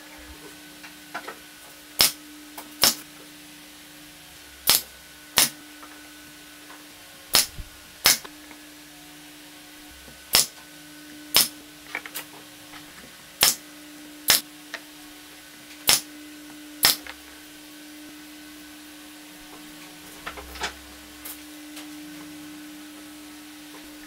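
Pneumatic brad nailer firing into pallet-wood boards: sharp shots in pairs, the two shots under a second apart and the pairs every two to three seconds, about a dozen in all. A steady low hum runs underneath.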